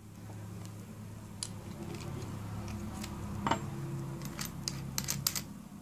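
Scattered light metallic clicks and clinks of hand tools being handled and set down, with a sharper tick about three and a half seconds in and a quick run of clicks near the end, over a steady low hum.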